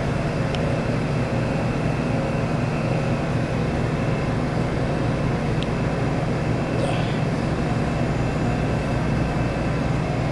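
Steady low mechanical hum of laboratory machinery, with a few faint clicks as glassware is handled.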